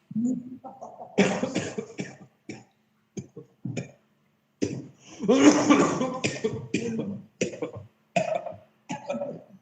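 A man coughing and retching in a run of fits: short single coughs alternate with longer, drawn-out voiced heaves, the longest about five seconds in.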